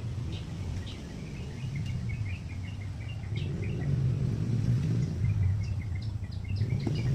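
A steady low outdoor rumble that grows louder about four seconds in, with a small bird chirping in quick runs of short notes.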